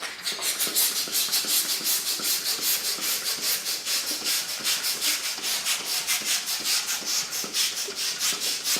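Small hand air pump inflating a toy balloon, pumped fast in even, hissy strokes at about five or six a second.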